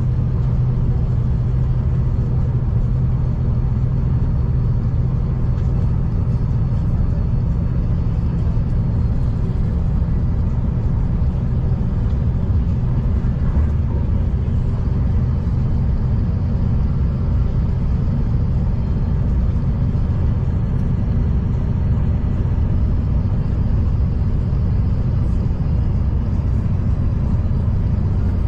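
V/Line diesel passenger train running, a steady low rumble of engine and wheels on the track. The engine's low hum drops slightly in pitch about ten seconds in.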